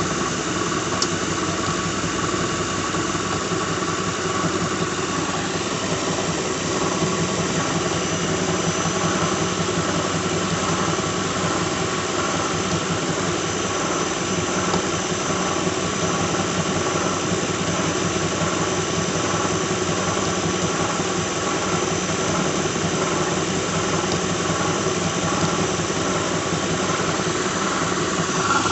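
2006 Lincoln Town Car's 4.6-litre V8 running steadily with a constant whirring squeal from the front of the engine, the sign of a failing harmonic balancer.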